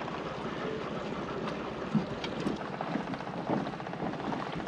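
A dinghy's outboard motor running steadily under way, with wind on the microphone. A brief thump comes about two seconds in.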